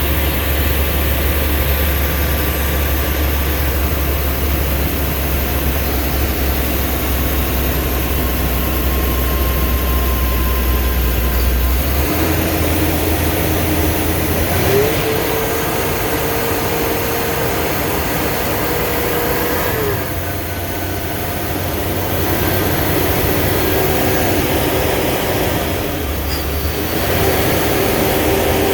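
Blue Bird school bus under way: steady engine and road noise. The deep engine note changes about twelve seconds in, and a thin whine holds for about five seconds near the middle.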